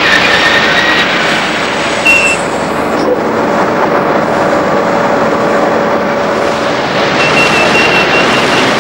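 Steady rushing noise of a ship's deck, machinery and sea water, as the Nautile submersible is hoisted out of the sea by crane. Faint short high tones sound about two seconds in and again near the end.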